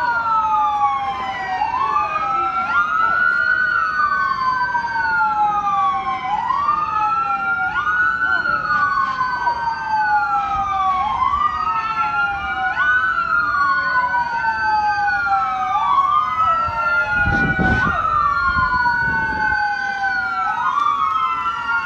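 Several police car sirens wailing together, out of step with one another, each climbing quickly in pitch and then falling slowly over about three to four seconds. A brief low rumble comes in about three-quarters of the way through.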